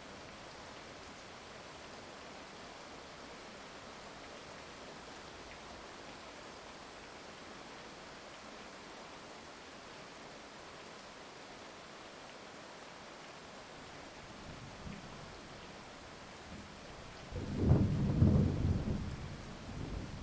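Steady heavy rain, with a short distant rumble of thunder about three-quarters of the way in and a loud, deep thunderclap rumbling for about two seconds near the end.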